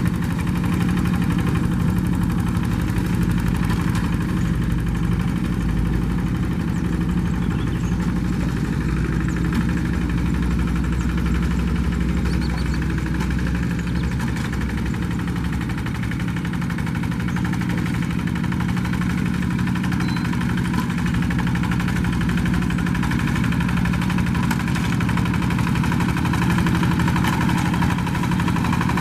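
Two-wheel paddy-field hand tractor's single-cylinder diesel engine running steadily, with a fast even chugging.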